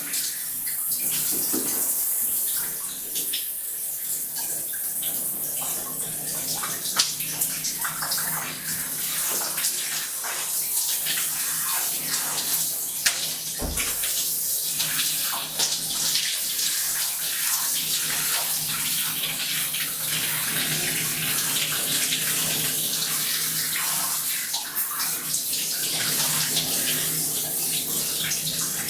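Shower water pouring down into a bathtub, a steady hiss with irregular splashing as the spray hits the tub and body.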